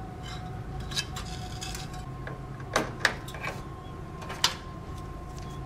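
Power-supply cables and their plastic connectors being handled and plugged in inside a steel PC case: a few short clicks and knocks, the loudest about three seconds in, over a steady background hum.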